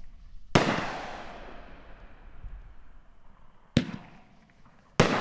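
Wise Guys 500-gram consumer firework cake firing: three sharp bangs, one about half a second in and two more close together near the end, each trailing off in a long fading echo.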